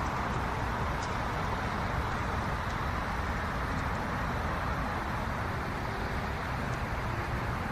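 Steady, even hum of distant city traffic, a continuous rumble and hiss with no distinct events.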